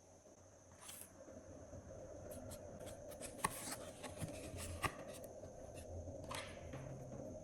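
Glossy slime being handled and mixed, with soft rubbing and scattered small sticky clicks that grow busier after about a second.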